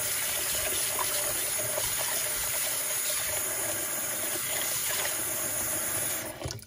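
Kitchen tap running steadily into a stainless steel pot of water in a sink; the tap is shut off near the end and the water noise stops suddenly.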